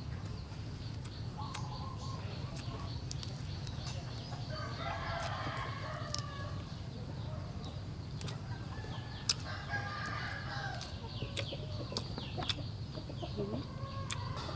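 Chickens clucking in the background, with two longer calls about four and nine seconds in, over a steady low hum. Scattered small clicks from eating with the fingers.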